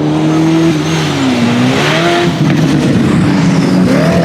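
High-performance car engine accelerating hard: its pitch climbs, drops briefly about a second in and again near the end, then climbs again, with a rush of noise around the middle.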